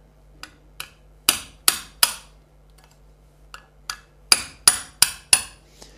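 Hammer tapping a pin punch down through a washer to drive an old rear hub seal out of its seal carrier: gentle metallic taps, about three a second, five then seven with a short pause between.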